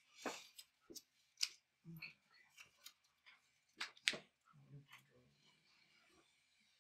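Trading cards being handled and set down on the table during play: a string of short, sharp snaps and slides at irregular intervals.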